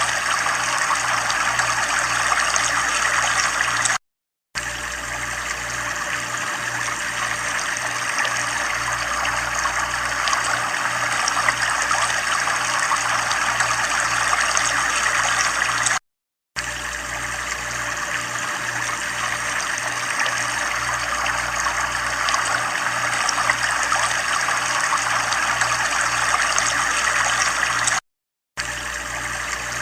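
Steady running, trickling water, broken three times by a brief total silence about every twelve seconds, as where a recording loops.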